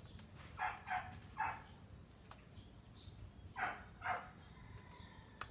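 Several short animal calls in the background: three about a second in and two more around four seconds in.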